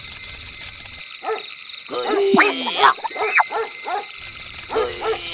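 A dog whining and yipping in a string of short high calls that rise and fall, starting about a second in, with a brief break just before the end.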